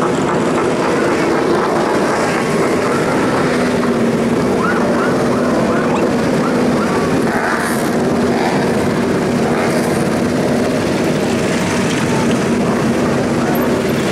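Many motorcycle engines running together at low parade speed, a steady mixed engine drone.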